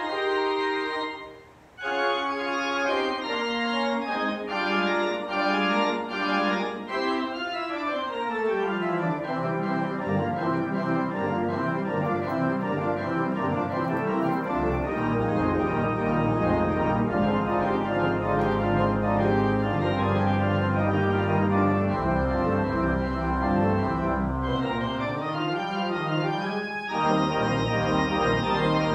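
Organ playing the postlude at the close of a worship service, with sustained full chords and moving lines. There is a brief break about a second and a half in, and deep pedal bass notes come in about halfway through.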